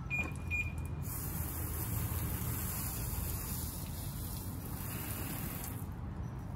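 Water spraying during a car hand wash: a steady hiss that starts about a second in and stops near the end, just after two short high squeaks.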